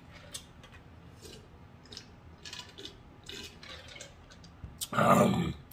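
Sips and swallows of soda from a can, with small wet mouth clicks, followed about five seconds in by a loud, short voiced exhale after the drink.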